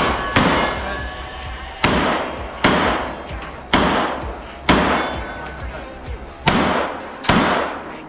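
Smith & Wesson M&P 9mm pistol firing about eight shots at an irregular pace of roughly one a second, each shot trailing off in a long echo. The shots are fired from inside a steel shipping container.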